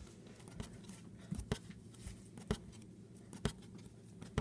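Light, irregular clicks and taps of Lego pieces being handled against a wooden tabletop, a handful of sharp ones spaced about a half second to a second apart.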